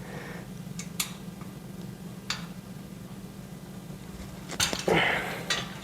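Metal shelf parts clinking and knocking a few times as they are handled and taken apart, with a louder clatter near the end, over a steady low hum.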